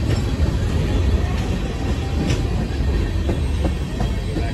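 Freight train tank cars rolling past on steel rails: a steady rumble of wheels on track, with the last car going by near the end.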